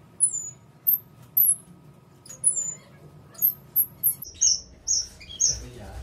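Small caged birds chirping: many short, high, falling chirps, several a second, over a faint steady hum.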